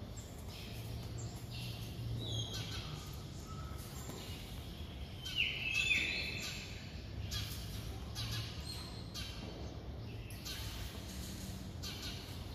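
Birds calling again and again in short calls, one louder sliding call about five and a half seconds in, over a steady low hum.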